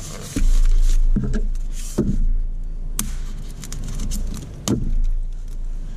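Styrofoam packaging block being handled and its tape slit with a small knife: low rubbing and bumping noise on the table with a few sharp clicks, the sharpest about three seconds in.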